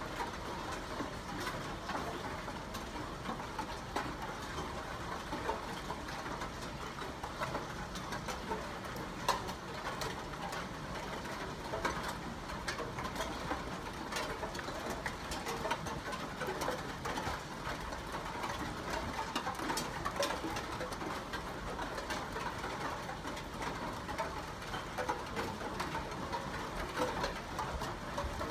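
Steady rain falling, an even hiss of drops with many small sharp ticks of drops striking close by.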